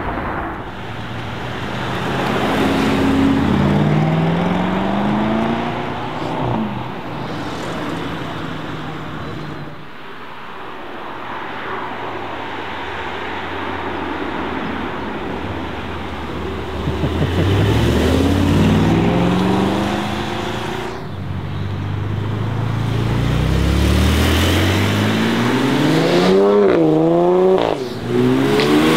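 Mercedes-AMG SL63's 4.0-litre twin-turbo V8 accelerating hard in several separate runs, its note climbing in pitch through the gears again and again. Near the end a louder, fast-changing burst of high revs comes in.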